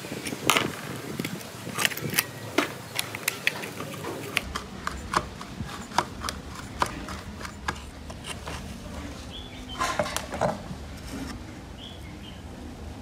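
Small screwdriver prying at a plastic security-camera housing: a string of sharp clicks, taps and scrapes of metal on plastic, with a louder cluster of clicks about ten seconds in.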